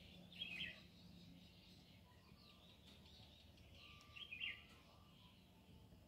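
Near silence, broken by two brief bird chirps, one about half a second in and another about four seconds in.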